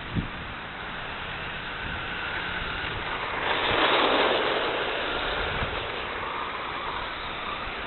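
Radio-controlled car driving on ice: a faint wavering motor whine over a steady hiss, with a louder rushing noise lasting about a second near the middle and a couple of low thumps.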